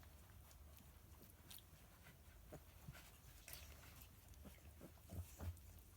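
Faint small noises of two-week-old Galgo puppies: scattered soft whimpers, snuffles and clicks, with two louder low bumps about five seconds in.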